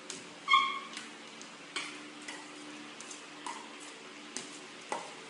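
Metal dog bowl clinking as a dog eats from it: one ringing clink about half a second in, then a handful of lighter clicks and taps spread through.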